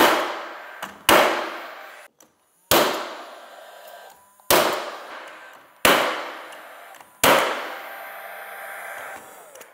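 Nail gun firing five times, one to two seconds apart, driving nails into wooden door casing and base trim. Each shot is a sharp crack that fades out over a second or so.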